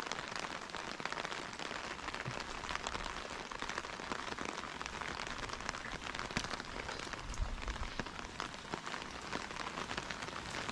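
Steady rain falling on a wet street: an even hiss dotted with many small drop ticks.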